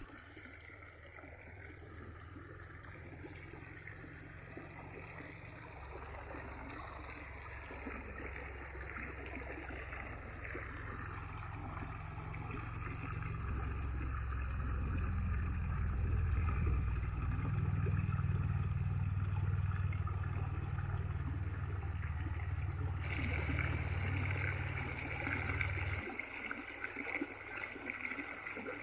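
Shallow mountain river riffle, the Jemez River, rushing and gurgling over rocks in a steady hiss of running water. A low rumble swells under it through the middle, is the loudest part, and cuts off suddenly near the end, where the water grows brighter.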